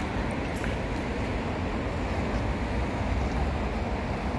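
Steady outdoor background noise: a low rumble with a wide hiss above it and no distinct events.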